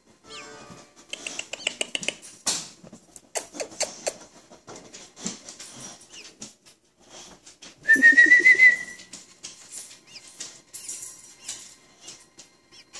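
Baby robin nestling chirping while it is handled on a towel, amid rustling and soft clicks of fingers and cloth. About eight seconds in comes one louder, rising, warbling call, lasting under a second.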